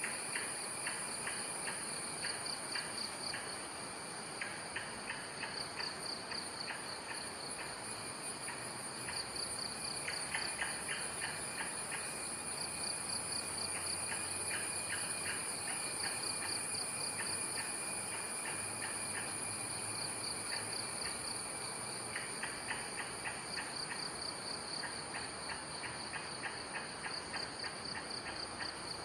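Chorus of forest insects: a steady high-pitched drone with runs of fast pulsing chirps that come and go every few seconds.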